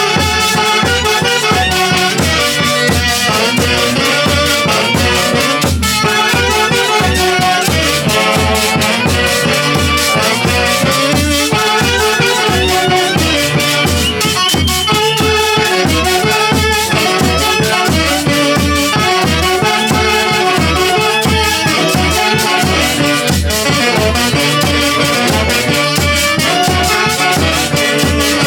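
Huaylía, an Andean dance tune from Huancayo, played by an orchestra: a melody over a steady beat of about two pulses a second, continuous throughout.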